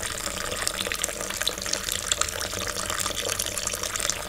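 Water pouring steadily into a glass, with fine splashing throughout.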